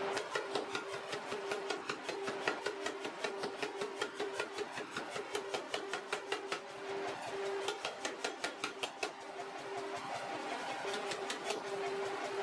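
Mechanical power hammer pounding a red-hot steel bar on its anvil in a fast, even run of blows, several a second, as the knife blank is drawn out.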